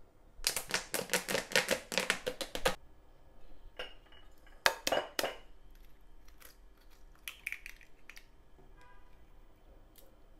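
A rapid run of sharp clicks and clinks for about two seconds. Then, a little before halfway, two sharp knocks as an egg is cracked on the rim of a glass mixing bowl, followed by faint small clicks from the shell as the egg is separated.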